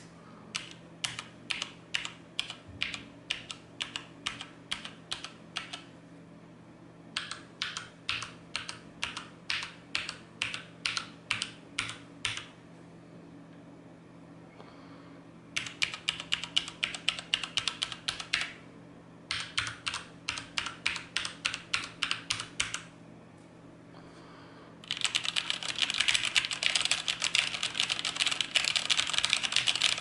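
HyperX Alloy FPS mechanical keyboard with Cherry MX switches, typed on in a keyboard sound test. It starts with runs of single keystrokes at about three or four a second, broken by short pauses. About five seconds from the end this turns into fast, continuous typing.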